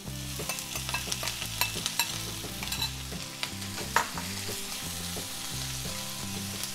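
Fried squid pieces tipped into a nonstick frying pan of sautéing onions and scallions, then stirred with chopsticks: steady sizzling with many small clicks and scrapes of the chopsticks against the pan. One sharper click about four seconds in is the loudest moment.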